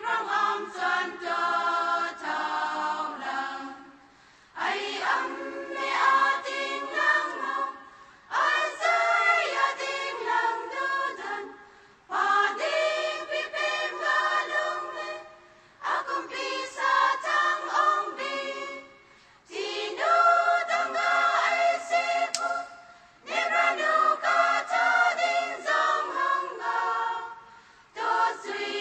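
A choir singing, in phrases of about three to four seconds broken by brief pauses.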